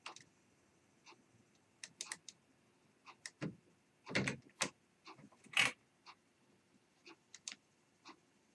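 Faint, scattered clicks and short rattling noises from a computer mouse and keyboard in use, a little busier about halfway through.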